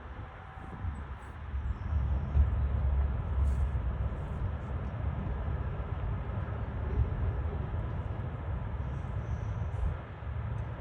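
Airbus A320-211 on landing approach: the steady low rumble of its CFM56 turbofan engines, growing louder about two seconds in.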